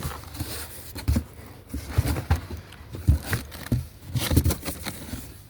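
Irregular knocks, taps and rustling of firework packages being handled and set down while they are sorted into a box.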